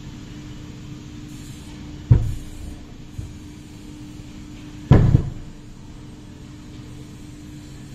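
Two dull thumps from the aluminium front differential housing of a Polaris Ranger XP 1000 being turned over and set down on a towel-covered wooden bench, the second louder, each with a short ring-out.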